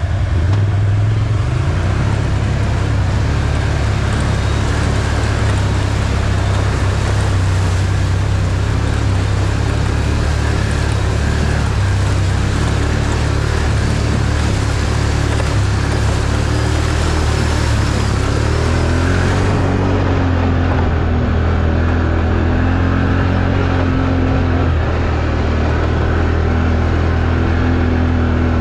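Can-Am ATV engine running steadily in four-wheel-drive low range while riding a muddy trail, a continuous deep hum with hiss above it. The hiss drops away about two-thirds of the way through.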